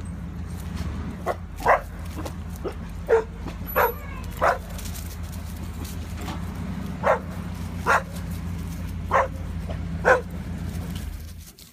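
Dogs barking, about ten short barks at irregular intervals, over the steady low rumble of an Airstream 290 motorhome's engine idling. The engine cuts off near the end.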